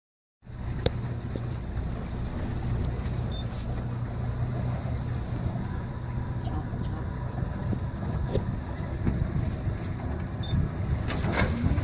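Boat motor running steadily at low revs, a constant low hum. Near the end comes a rush of splashing water as a hippo plunges off the riverbank.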